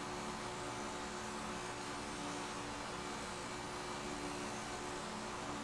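Steady whir and hum of a running electric motor, with an even rushing air noise.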